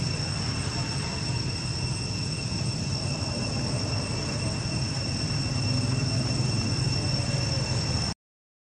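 Steady high-pitched insect drone over a continuous low rumble, cutting to silence just before the end.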